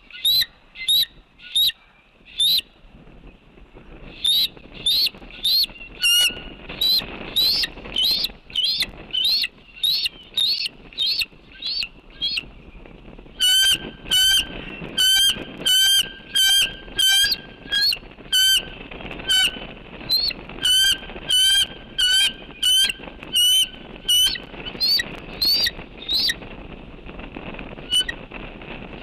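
Bald eagle giving a long run of short, high-pitched piping calls, about two or three a second.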